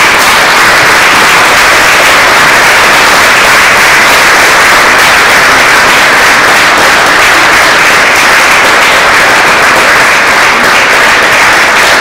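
Audience applauding, loud and steady, with dense hand clapping.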